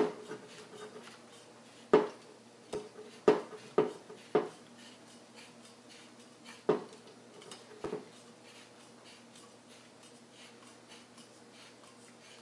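Handheld tubing cutter being turned around an aluminum tube to cut it through, giving sharp metallic clicks and knocks at uneven intervals, most of them in the first eight seconds, then only faint ticking.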